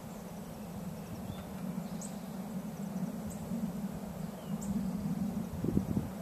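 Open-country ambience: a steady low hum with short high bird chirps about every second and a half, and faint insect ticking. A brief low bump comes near the end.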